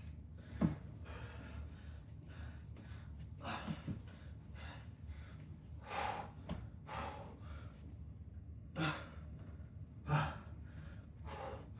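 A man breathing hard and gasping from exertion in a side plank set: a string of loud, sharp breaths every second or two, the sign of a winded exerciser near the end of his strength.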